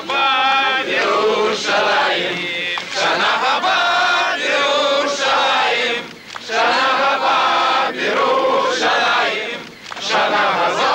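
Many voices chanting together in unison, in sung phrases with no instruments, pausing briefly about six seconds in and again near the end.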